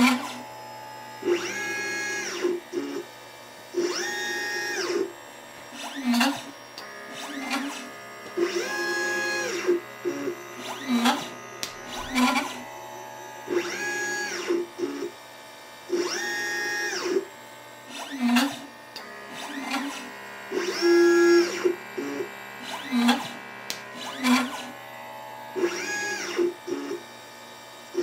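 Stepper motors of a LitePlacer pick-and-place machine driving its head, each move a whine that rises in pitch, holds and falls back. The moves repeat every couple of seconds, with sharp clicks and short buzzes in between.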